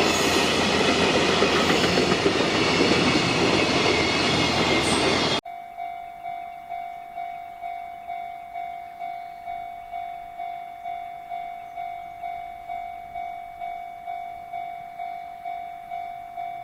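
Freight train rolling past with loud wheel and rail clatter, which cuts off abruptly about five seconds in. After that a Japanese level-crossing alarm rings, a single bell-like tone repeating about twice a second, much quieter.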